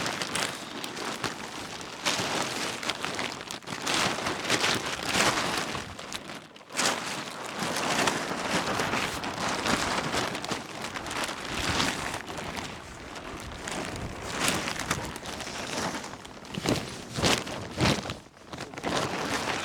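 Camping gear being packed up: fabric and bags rustling and crinkling in irregular loud surges, with many sharp crackles.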